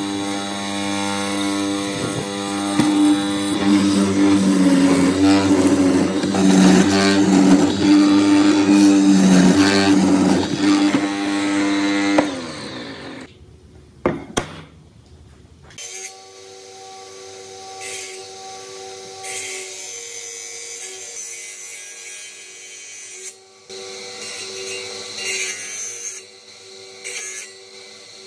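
Hollow chisel mortiser running loudly as its square chisel bores a mortise into a clamped timber, for about twelve seconds. After a short quiet gap with a few knocks, a quieter steady hum from a spinning circular saw blade as a board is fed against it.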